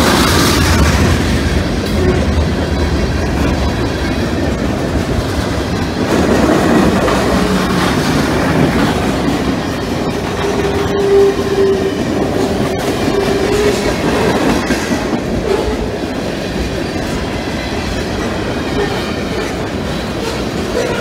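Freight cars (tank cars, flatcars and covered hoppers) rolling past: a steady rumble and clickety-clack of wheels over the rail joints, with a brief squealing tone about halfway through.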